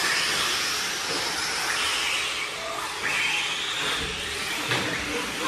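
Electric 1/8-scale RC buggies racing: a whine from their electric motors that rises and falls as they accelerate and slow, over a steady hiss.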